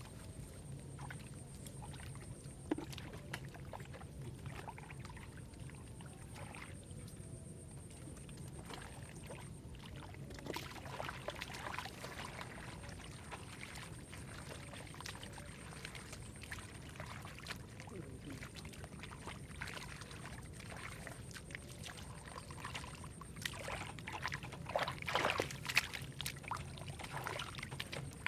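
Muddy shallow water sloshing and splashing in irregular bursts as hands dig through rice-field mud for catfish, busier about ten seconds in and again near the end.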